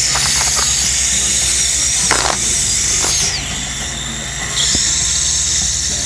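Dental handpiece whining at high pitch as it finishes composite crowns on primary front teeth, its pitch dipping briefly several times. It stops a little past three seconds in and starts again about a second later.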